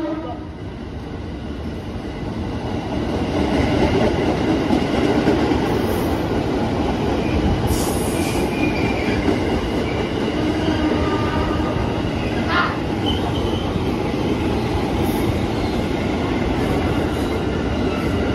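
KAI Commuter 205-series electric commuter train running along the track, wheels rumbling over the rails with brief high squeals; it gets louder from about three seconds in as the cars come alongside.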